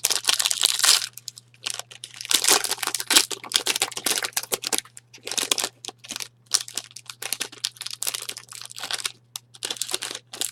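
Plastic and foil wrapping on a box of trading cards crinkling and tearing as it is opened. The rustles come in irregular short bursts over a faint steady low hum.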